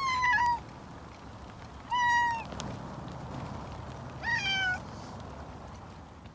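A cat meowing three times, each meow about half a second long and about two seconds apart, over a faint low rumble.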